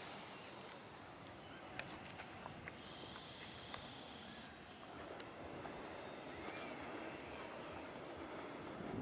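Faint outdoor ambience: a steady hiss with a thin, high, steady insect trill through the first half, and a few small clicks.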